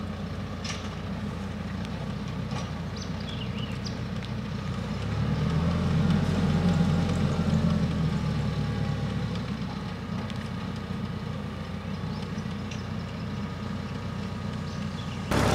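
TYM compact tractor's diesel engine running steadily while driving a three-point post hole auger. It grows louder for a few seconds around the middle.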